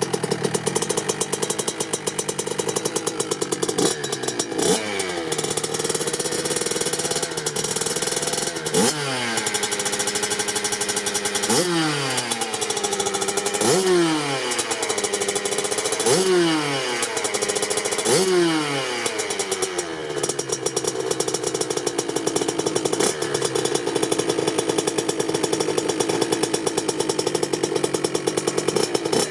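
Kawasaki KX65's 65cc single-cylinder two-stroke engine idling, then revved in about half a dozen quick throttle blips a couple of seconds apart, each rising and falling back, before settling into a steady idle again.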